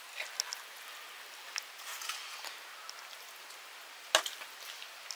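Cooking utensils clicking and tapping lightly against a pot over a faint steady hiss, with one sharper knock about four seconds in.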